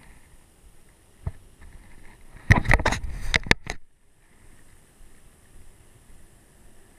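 Handling clatter in a small fishing boat: one sharp knock, then about a second later a quick run of loud knocks and rattles lasting about a second.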